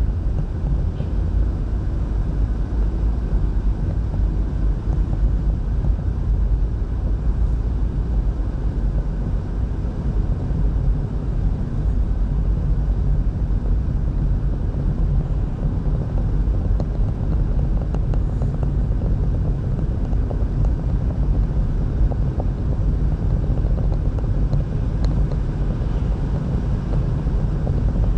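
A car driving at steady speed, heard from inside the cabin: an even, low rumble of the engine and the road.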